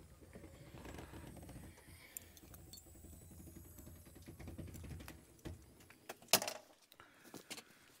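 Hard-shell rooftop tent being pushed open by hand, with small rattles and clicks from the shell and its fittings over a low rumble. A sharp click comes a little after six seconds in.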